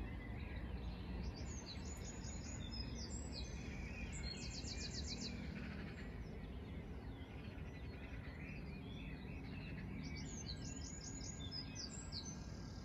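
Early-morning birdsong: several short, rapid high-pitched trills over a steady low rumble of background noise.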